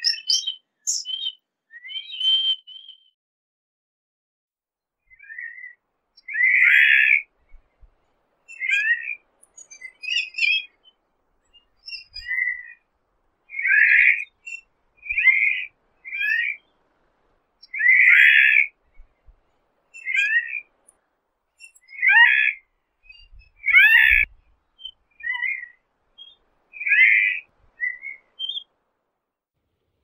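Lesser noddy giving high, thin whistled calls for the first few seconds. After a short pause a blue noddy calls instead: a series of short, lower calls, about one every one to two seconds.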